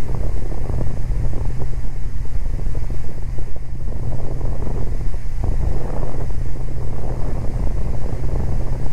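Beechcraft Baron G58's twin Continental IO-550 six-cylinder engines and propellers running steadily, a constant drone heard inside the cabin.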